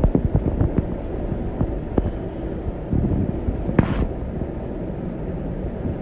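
Rustling and handling noise close to the microphone, with many small scattered clicks and a brief hissing rustle about 2 seconds in and again about 4 seconds in.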